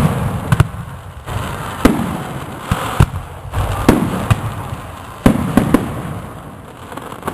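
Fireworks exploding: a run of about eight sharp bangs, a second or so apart and some in quick succession, each trailing off in a rumble.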